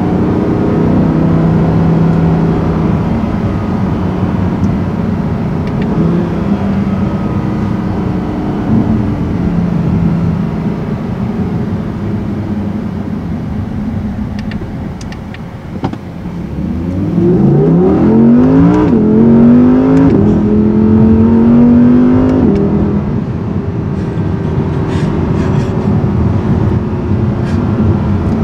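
2018 Audi R8 V10 RWS's 5.2-litre V10 heard from inside the cabin. It runs steadily at part throttle, then a little past halfway revs hard under acceleration. Its pitch climbs, drops once at an upshift, climbs again, then eases back to a steady cruise.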